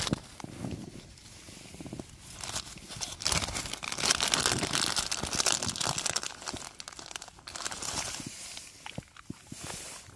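Irregular crinkling and rustling, with many small crackles, loudest in the middle stretch.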